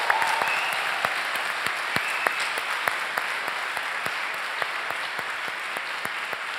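Audience applauding, many hands clapping at once, the clapping slowly dying down.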